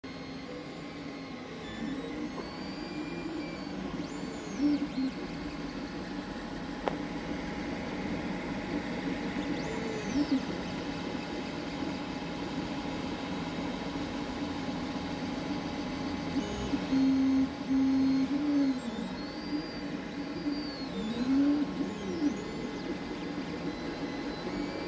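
Creality CR-X 3D printer running a print: a steady hum of its fans, over which the stepper-motor whine glides up and down in pitch as the print head moves, holding one steady note for about a second and a half two-thirds of the way through.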